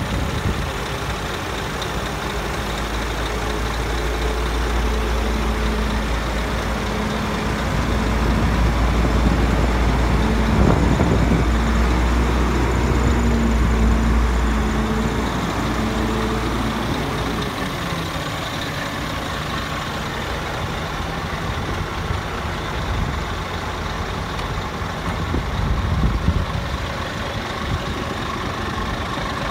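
Scania P400 truck's diesel engine idling steadily, a low rumble that is heavier in the first half and eases a little after about 17 seconds, with a brief knock in the middle.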